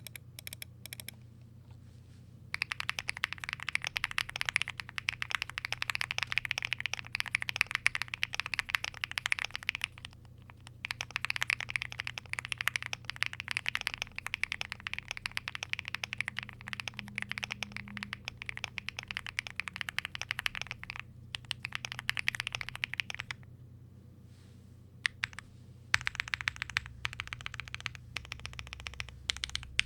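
Fast typing on a Velocifire Lucky65 mechanical keyboard with Gateron Smoothie linear switches: dense rapid key clacks in long runs, with two brief pauses around a third and three quarters of the way through.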